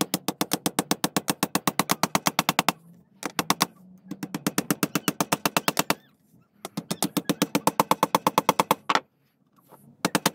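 Claw hammer tapping small nails into a wooden cabinet-door frame: quick runs of light, even taps, about ten a second, with short pauses between the runs.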